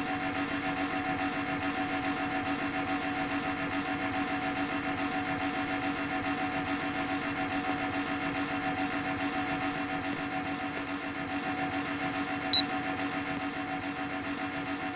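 National air conditioner running: a steady hum that pulses evenly, about four times a second. One short high beep sounds near the end.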